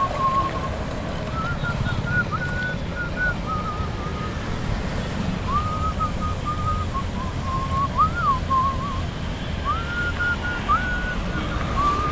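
A person whistling a tune in short phrases, sliding up into some notes, over a steady low rumble of wind and road noise from the moving bike.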